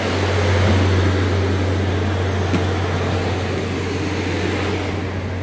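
Carrier Xarios 500 truck refrigeration unit running steadily while it pulls the box temperature down, its fans blowing with a steady low hum and two faint ticks.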